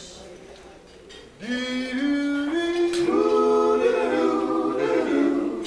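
Small group of men singing a cappella. The first voice comes in about a second and a half in, holding notes that step upward, and the other voices join in harmony about three seconds in.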